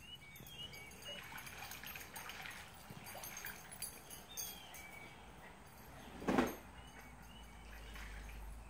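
A single short animal call about six seconds in, the loudest sound here, with faint bird chirps earlier on.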